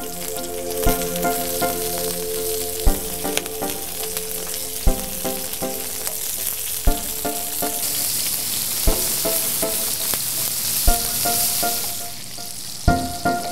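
Whole prawns searing in hot oil in a steel paella pan: a steady frying sizzle.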